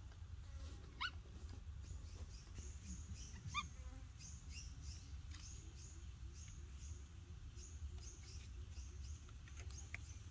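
Baby monkey giving two short, high squeaks, about a second in and again near four seconds in, while it is fed banana. A faint run of high chirps repeats about twice a second underneath.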